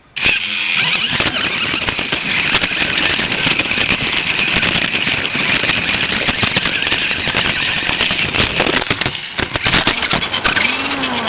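Radio-controlled car driving, its electric motor and gears whining with the tyres grinding over the ground, heard up close from a camera riding on the car. It starts abruptly and stays loud and steady, with scattered clicks.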